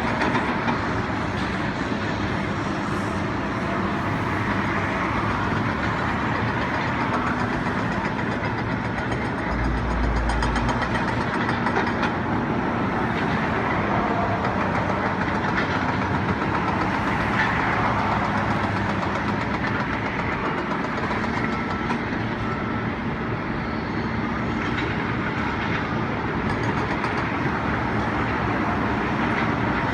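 Steady rumble of a moving vehicle, with a rattling clatter.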